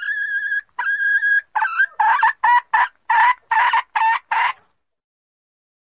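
Red junglefowl hen calling, the call used as a lure to draw in males: a long drawn-out note rising in pitch, a second shorter held note, then about eight short harsh clucks in quick succession before it stops.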